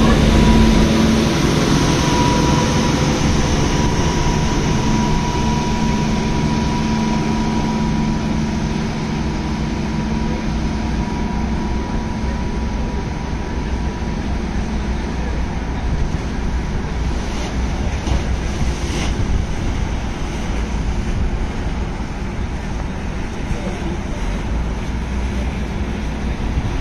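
Steady rushing wind and low rumble, with a faint high hum that fades out about a third of the way in.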